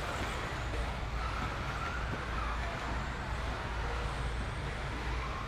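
Electric RC buggies with 13.5-turn brushless motors racing, their motors whining faintly and gliding up and down in pitch as the cars speed up and slow, over a steady low hum.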